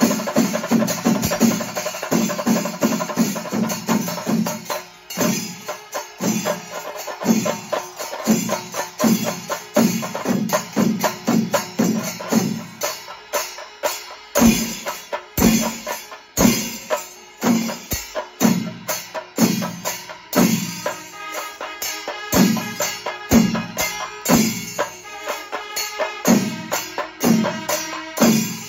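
Panchari melam: a large ensemble of chenda drums beaten with sticks in unison, with ilathalam cymbals clashing in time. The strokes come fast and dense for the first few seconds, then settle into a slower, spaced-out pattern of heavy unison beats.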